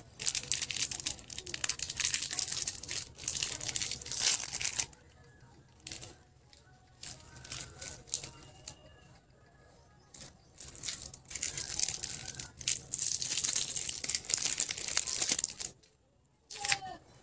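Clear plastic lollipop wrapper crinkling and tearing as it is pulled open. A quieter stretch with a few small clicks follows, then from about three quarters of the way in a chocolate bar's foil wrapper crinkles and tears as it is peeled.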